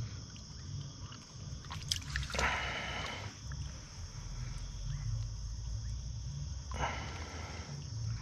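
Steady chorus of night insects, with two short bursts of noise about two and a half and seven seconds in.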